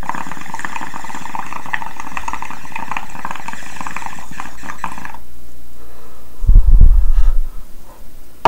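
Water bubbling and gurgling inside a small glass bubbler pipe as a hit is drawn through it for about five seconds. About a second and a half later come loud, low gusts of breath hitting the microphone as the smoke is exhaled.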